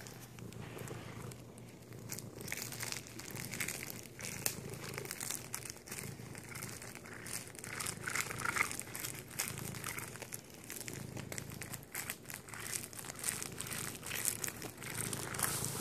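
Cellophane wrapping on a cookie sleeve crinkling and crackling in irregular bursts as a cat licks and chews at it.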